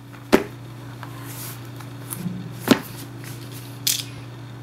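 Cardboard shipping box being set down and handled on a mat: two sharp knocks about two seconds apart and a brief scratchy rasp near the end, over a steady low hum.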